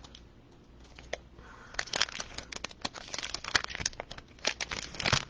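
Plastic wrapper of a Prizm football card pack crinkling and tearing as it is pulled open by hand, a pack that is a pain to open. A run of sharp crackles starts about two seconds in.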